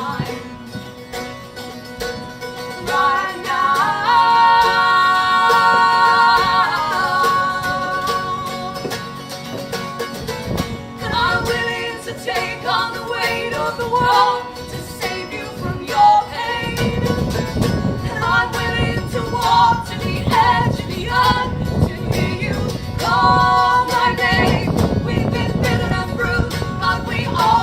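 Live acoustic folk music: guitar playing under wordless female singing, with one long note held with vibrato a few seconds in and the strumming growing fuller in the second half.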